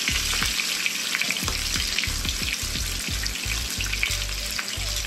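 A whole flattened chicken frying skin-side down in its own rendered fat in a nonstick skillet, with crushed garlic and fresh thyme in the fat: a steady sizzle full of small crackles and pops.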